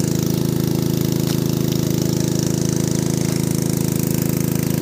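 A small engine running steadily at a constant speed, with a fast, even knocking beat.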